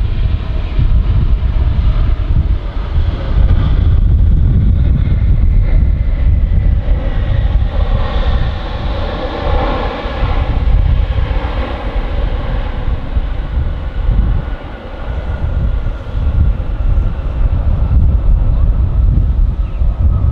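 Jet airliner passing close by, its engine whine gliding down in pitch as it goes past, loudest about halfway through. Heavy wind buffets the microphone.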